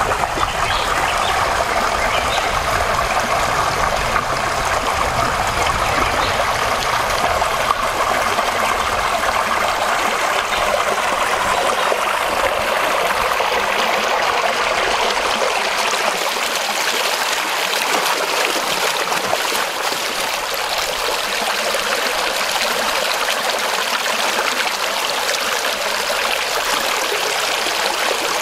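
Shallow stream running over rocks: a steady rush and trickle of water.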